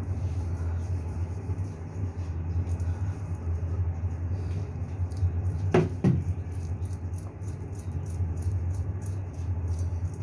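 Kerokan: a coin or scraper drawn over the skin of the chest in short, irregular strokes, faint over a steady low hum. A short, sharp double sound comes about six seconds in.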